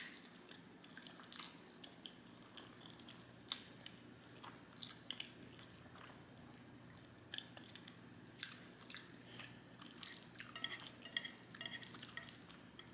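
Faint close-miked eating of black bean noodles: scattered clicks of utensils against the bowl and soft wet chewing and mouth sounds, growing busier near the end.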